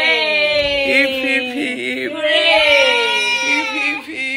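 A high voice making long, wavering, gliding held notes, like singing or wailing.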